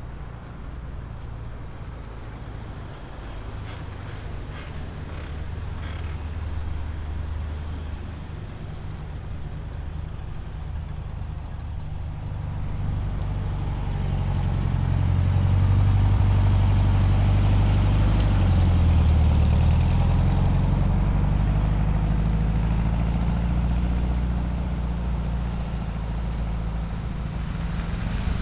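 Car engine running at low speed with a low, steady note, growing louder from about halfway through as the car draws close, then easing off slightly near the end.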